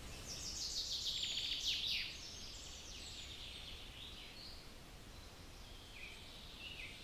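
Birds chirping and trilling, a dense burst of rapid trills and quick falling notes in the first two seconds, then scattered softer calls, over a faint low rumble.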